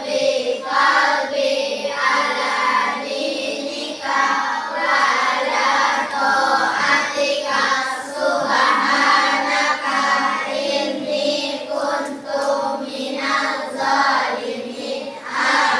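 A class of children chanting a prayer together in unison, many voices at once in a steady, sing-song rhythm.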